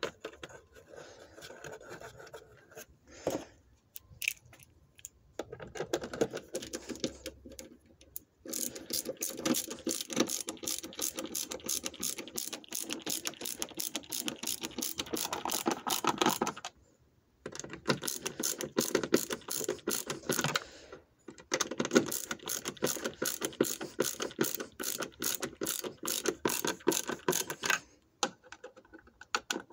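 Ratchet wrench clicking rapidly as the tail light's mounting bolts are driven back in. The clicking comes in three long runs with two short pauses, after some quieter fumbling and handling noises in the first several seconds.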